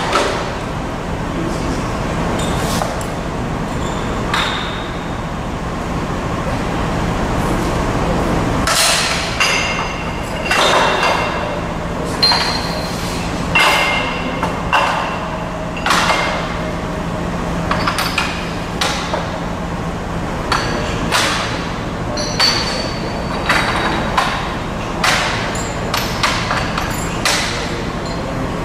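Thin sheet metal clanking and ringing as it is handled and folded in a CIDAN Futura Plus 30 sheet metal folding machine, over the machine's steady hum. The clanks are irregular and become frequent about a third of the way in.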